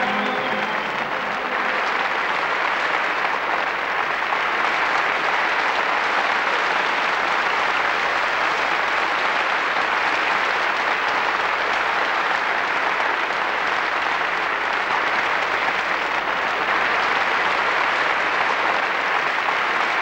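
Large audience applauding steadily, a dense even clapping that does not build or fade.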